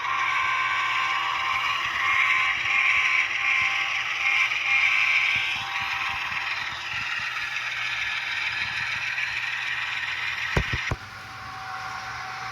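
Locomotive sound from an HO-scale ScaleTrains ES44's DCC sound decoder, played through the model's small speaker. It runs steadily, with a couple of sharp clicks about eleven seconds in, after which it drops noticeably quieter.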